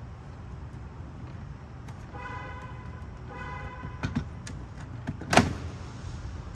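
Plastic clicks and then one sharp snap as the backup light housing is pried out of its clips, over a steady low rumble. Two short pitched beeps sound shortly before the clicks.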